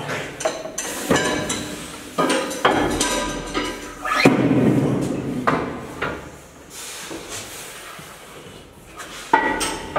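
Metal clanks and knocks from a steel deadlift frame loaded with iron weight plates being handled, the loudest clank about four seconds in.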